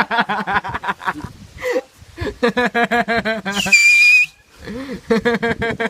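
A person whistling one loud, steady high note held for about half a second, a little over halfway in, between bouts of rapid pulsed giggling.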